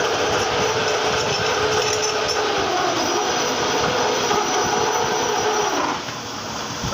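Metalworking lathe running under a cut, a steady grinding mechanical noise with a ringing tone through it; about six seconds in the tone falls away and the noise drops.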